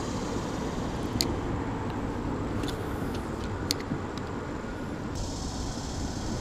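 Steady low rumble of wind buffeting the camera microphone out on open water, with a few light clicks as a spinning reel is cranked.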